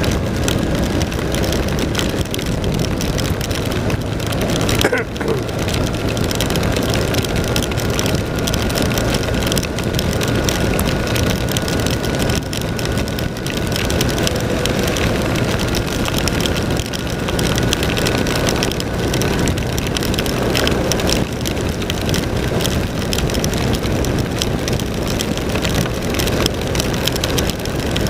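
BMW R1200 RT-P motorcycle's boxer-twin engine running steadily at road speed, mixed with the rush of wind and rain on the rider.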